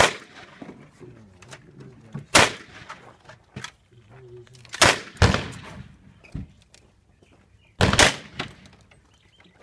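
Revolver being fired one shot at a time: five sharp bangs at uneven intervals, two of them close together about halfway through, each dying away quickly.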